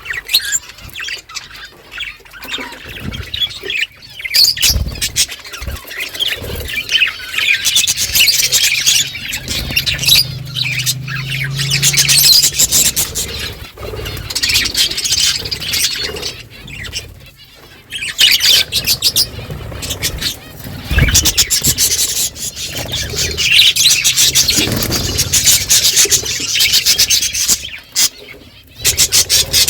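A flock of budgerigars chattering and chirping continuously, many high warbling calls overlapping, with short lulls about halfway through and near the end. A few dull low knocks sound under the chatter.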